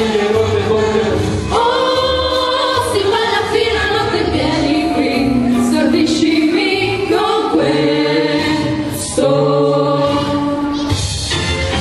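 Several women singing together into microphones over amplified instrumental accompaniment with a pulsing bass line.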